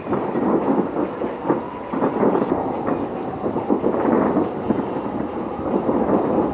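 Aerial fireworks shells bursting in rapid succession, a continuous rumble of overlapping bangs with no pause between them.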